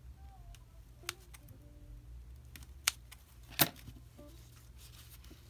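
Handling noise: three sharp clicks and taps, the loudest about three and a half seconds in, as a plastic fashion doll and a pair of scissors are moved about on a plastic cutting mat.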